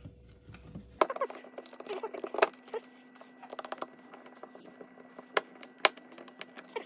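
Small hard clicks, knocks and rattles from handling the ADT alarm panel's plastic parts and its rechargeable battery pack while the battery is being swapped. They start about a second in, with a few sharper knocks among them.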